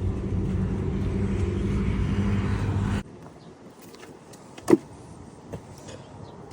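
A motor running with a steady, even hum that cuts off abruptly about three seconds in, followed by quieter background and a single sharp click.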